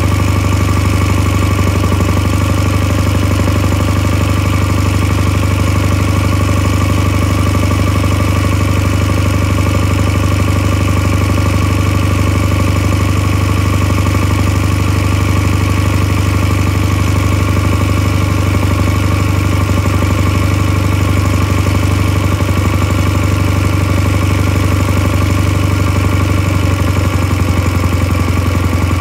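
Stuart Turner WD 1 hp air-cooled flat-twin stationary engine running steadily at idle.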